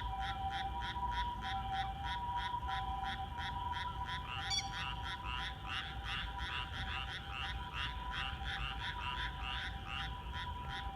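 Night chorus of frogs calling in a fast, even pulse of about five calls a second, over two steady high tones that run on underneath.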